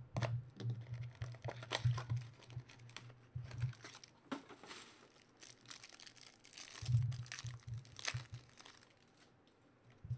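Plastic wrapper of a pack of football trading cards being torn open and crumpled, then the cards being handled and slid against one another: irregular crinkling and scratchy rustles, loudest about two seconds in and about seven seconds in.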